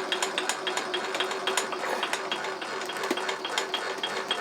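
Milling machine quill being wound up out of the way: a rapid, even run of ratchet-like clicks, about four to five a second, over a steady hum.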